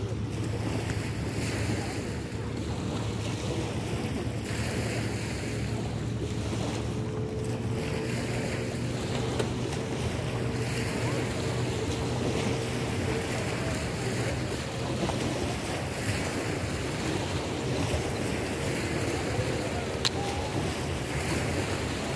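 Wind buffeting the microphone and river water lapping at a concrete shore, swelling and easing every second or two, over a steady low drone.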